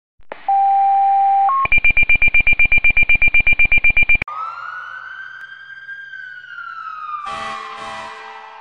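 Fire call alert tones: a steady tone, a brief higher one, then rapid beeping at about nine beeps a second. Then a siren wails up and slowly falls, with two short horn blasts near the end.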